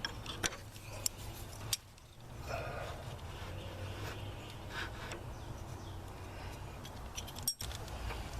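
Scattered light metallic clicks and knocks from tractor hitch parts being handled and unbolted, over a steady low hum; the sound drops out briefly about two seconds in and again near the end.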